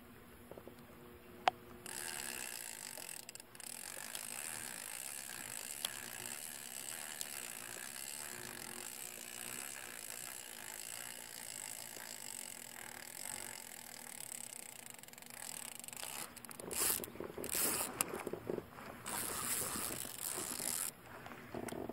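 Small inner-spool spinning reel, a Diamond Reel Micro II 301, being cranked steadily to retrieve the lure, with a continuous gear noise. From about 16 seconds in, the winding comes in louder, uneven spurts.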